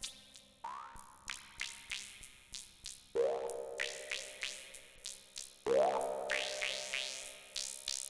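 Analogue Solutions Polymath paraphonic analog synthesizer playing short plucked notes, about three a second, each starting bright and quickly going dull. Fuller chords come in about every two and a half seconds.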